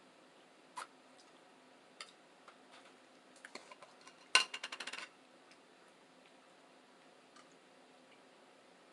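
Cutlery clicking against plates as people eat: a few scattered clicks, then a sharp clink about four and a half seconds in followed by a quick rattle of about ten ticks.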